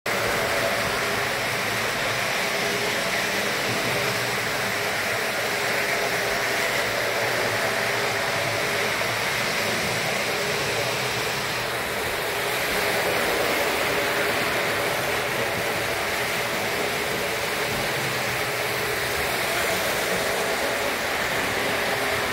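Three-rail O-gauge model trains running around the layout track: a steady whirring rumble of the locomotive motors and wheels on the rails.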